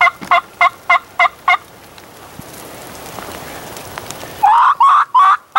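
Wild turkey calling: a run of evenly spaced notes, about three a second, that stops about a second and a half in. A louder run of calls starts about four and a half seconds in. Between them a light hiss of rain.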